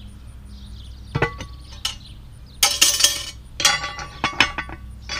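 Metal clinks and clanks of a homemade rebar lid lifter against a cast iron Dutch oven's wire bail and lid as the pot is set down and the lifter moved to the lid handle. There are several separate clinks, some with a brief metallic ring, and a longer rattling clatter about three seconds in.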